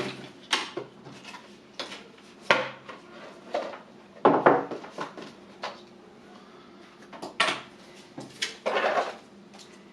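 A video doorbell's boxed accessories and packaging being taken out and handled: scattered clicks and knocks of small hard parts, with a couple of longer rustling bursts. The loudest is about four seconds in.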